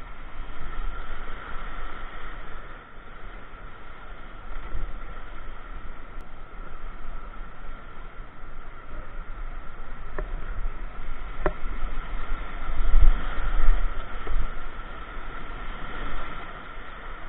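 Whitewater rapids rushing around a kayak, heard through the kayaker's own camera microphone. There are two sharp knocks about ten and eleven seconds in, and the water gets louder around thirteen seconds as the boat runs into frothing white water.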